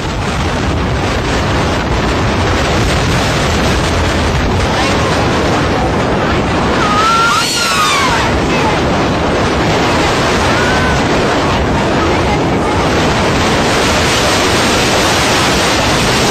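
Storm surf crashing and a strong wind blowing on the microphone in rough monsoon seas around a fishing boat: a loud, steady rush of water noise. A few brief high sliding cries sound about halfway through.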